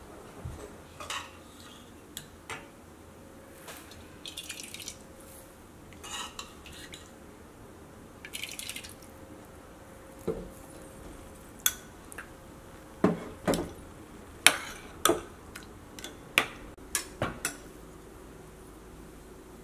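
Metal spoons clinking and scraping against serving bowls and pots as food is scooped and served. The scattered light taps and a few soft scoops come more often in the second half.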